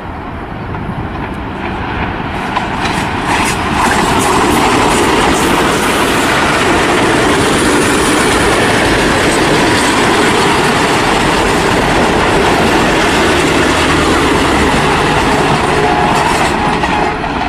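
Passenger train passing close by: the locomotive's approach swells over the first few seconds, then the coaches roll past with a steady, loud rumble and the clickety-clack of wheels over rail joints.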